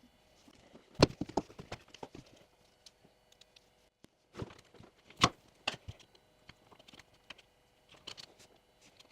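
Scattered sharp clicks and taps of small tools and a phone being handled on a work surface: a quick cluster about a second in, and a few single louder taps around the middle.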